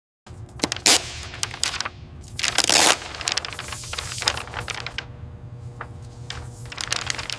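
Paint spraying in short hissing bursts, the loudest about a second in and from about two and a half to three seconds, with scattered sharp clicks and taps over a steady low hum.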